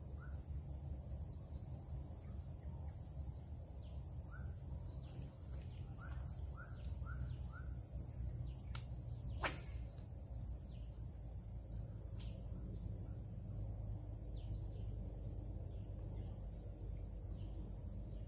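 Insects chirring steadily and high, with birds calling in short falling chirps, a quick run of them about four to seven seconds in. A single sharp click about halfway through stands out as the loudest sound, with two fainter clicks around it.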